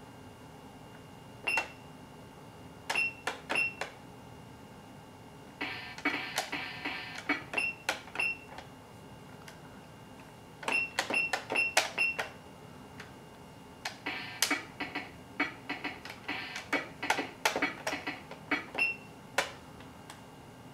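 Meowsic cat-shaped electronic toy keyboard playing short single notes, tapped out irregularly: a few single notes, then quick runs of several notes, with pauses between.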